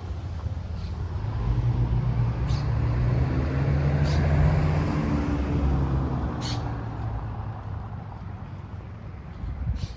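A motor vehicle's engine passing close by, its low hum building to a peak near the middle and then fading away, with a few sharp clicks over it.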